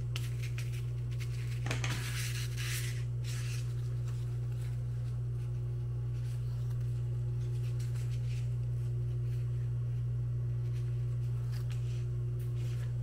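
Double-sided tape being handled, peeled and pressed onto Cordura nylon fabric by hand: a cluster of rustles and crackles about two seconds in and a few fainter ones later. A steady low hum underlies it throughout.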